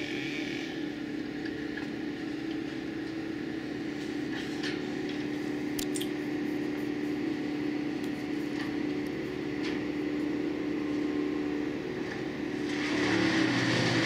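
Bandit Intimidator 15XP drum wood chipper running steadily at speed, with a few short clicks. Near the end the sound turns louder and harsher as the drum starts chipping dead limbs and leaves.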